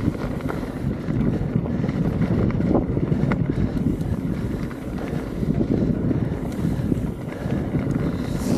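Wind rushing over the microphone while sliding fast down a ski slope, with the steady scrape of edges on packed snow.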